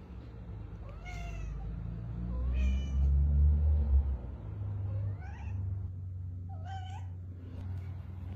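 Cat meowing in four short calls spread out, some gliding in pitch, over a low rumble that is loudest a few seconds in.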